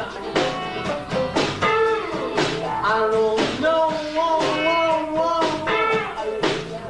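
Live band playing: electric guitars over bass and drums, with a strong drum hit about once a second and a bending, gliding melody line.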